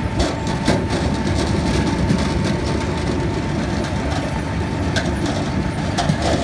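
Sugar beet unloading station's tipping ramp and conveyor running with a steady mechanical rattle and rumble, a thin steady whine over it, and a few sharp knocks as a trailer-load of beet is tipped off.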